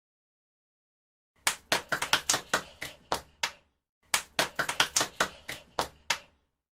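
Hands clapping in two short runs of about ten claps each, irregular and fairly quick, separated by a brief pause.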